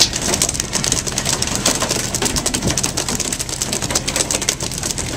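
A fishing boat's engine running with a steady low hum under a dense, rain-like crackle of rapid taps and spray noise.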